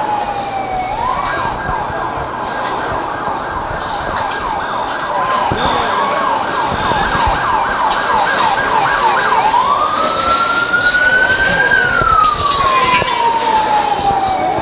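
Electronic emergency-vehicle siren. It begins with a falling wail, switches to a rapid yelp for about eight seconds, then goes back to a slow wail that rises and falls once.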